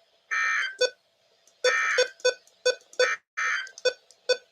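Emergency Alert System end-of-message (SAME) data bursts from a weather radio: short buzzy digital bursts, three of them, a second or so apart, mixed with sharp clicking blips. The bursts mark the end of the warning broadcast.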